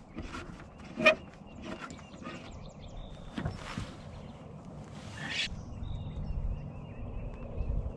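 Fishing tackle and clothing being handled on a boat: a sharp click about a second in, a few lighter ticks and rustles, with a low rumble in the second half.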